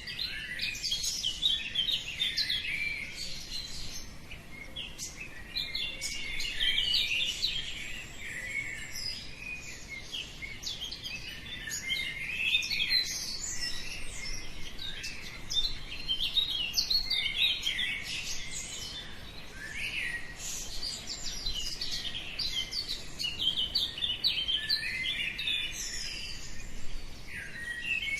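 Many small birds chirping and singing at once, a dense dawn chorus of overlapping high calls that keeps going without a break.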